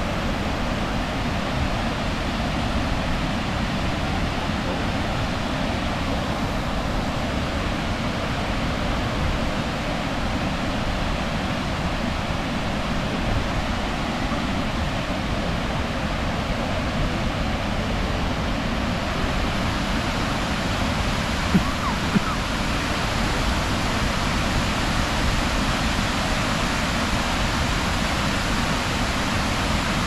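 Waterfall rushing steadily: an even wash of falling water, with two brief clicks about two-thirds of the way in.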